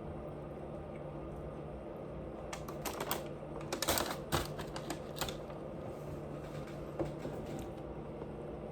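Close-up crunching of food being chewed: a burst of crisp crackling clicks from about two and a half to five seconds in, loudest around four seconds, with one more click near seven seconds, over a steady low hum.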